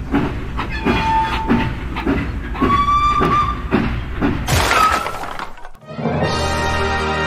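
Cartoon sound effects of a steam locomotive: rhythmic chugging about twice a second with two short whistle toots, a sudden crash-like burst near the middle, then a held chord of music near the end.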